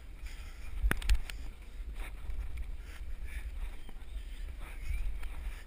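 Low wind rumble on a body-worn camera's microphone while someone climbs a rope up a wooden wall, with a cluster of sharp knocks about a second in and fainter bumps later as hands, feet and body hit the boards.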